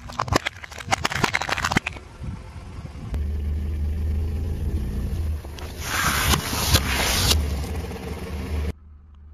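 Played backwards: a car tyre crushing a plastic cup with a rapid run of sharp crackling cracks. Then the car's tyre rolls with a steady low rumble over cardboard drink cartons, which crunch and splatter loudly for about a second and a half before the sound cuts off abruptly near the end.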